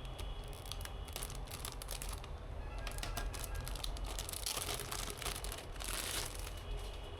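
Hands handling PC parts and their packaging: plastic crinkling with scattered light clicks and taps, and a longer rustle a little over four seconds in.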